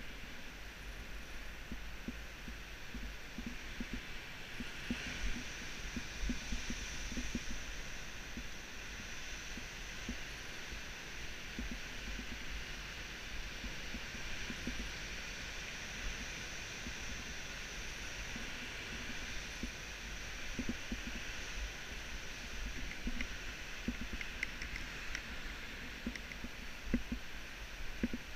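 Wind buffeting a helmet-mounted camera microphone: a steady hiss over a low rumble, with occasional soft knocks and a few faint clicks near the end.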